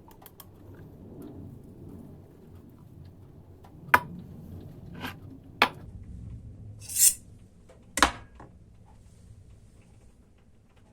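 Kitchenware handled on a counter: a few sharp clinks and knocks, spaced out, about four, five and six seconds in and again about eight seconds in, with a short hissing scrape about seven seconds in.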